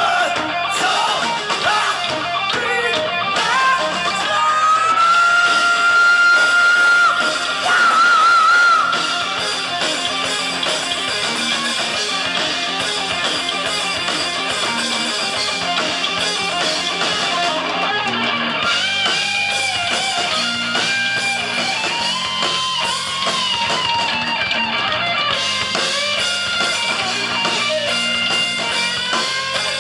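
Heavy metal band playing live: distorted electric guitars, bass and drums at full volume. A long high note is held about a quarter of the way in, wavering near its end, with bending lead lines later on.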